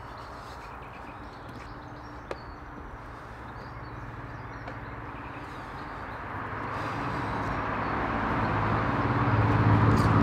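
A motor vehicle's engine hum growing steadily louder over the last few seconds as it approaches, with a few faint bird chirps.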